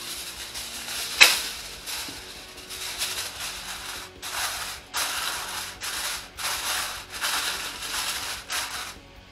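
Aluminium foil crinkling and crackling as a sheet is laid over a glass baking dish and pressed down around its rim. There is one sharp crackle about a second in, then a run of short crinkles, one every half second or so, in the second half.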